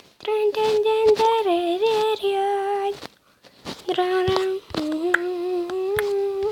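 A young girl's voice singing a wordless tune in two long phrases of held, wavering notes, with a break of about a second between them. A few light clicks come through during the singing.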